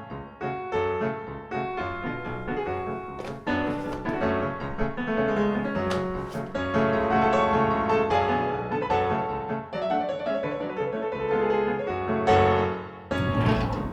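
Piano music, a run of quickly played notes forming a melody, with a few sharper accents.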